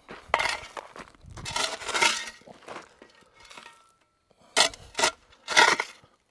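Steel shovel scraping into gravel and dirt and dumping shovelfuls onto a burning cordless drill, in several short scrapes and clatters, the sharpest ones near the end.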